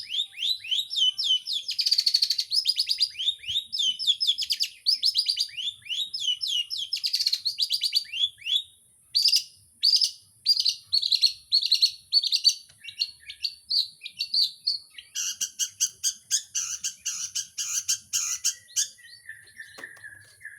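Long-tailed shrike singing a fast, unbroken stream of quick downward-sweeping notes and varied mimicked phrases, pausing only briefly about nine seconds in.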